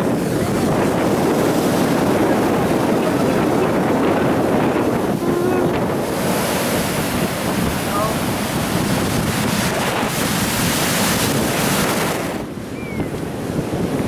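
Ocean surf breaking and washing up the sand, with wind buffeting the microphone. The hiss of the wash grows brighter about halfway through and falls away briefly near the end.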